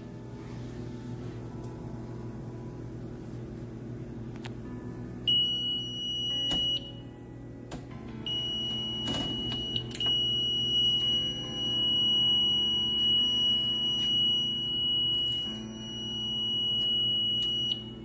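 Mircom FX-2000 fire alarm panel's trouble buzzer sounding a loud, steady high tone: a short burst about five seconds in, then a long continuous tone from about eight seconds in that cuts off near the end, with a few sharp clicks in between. It signals a trouble condition on the panel, here a display mismatch trouble on the remote annunciator data link.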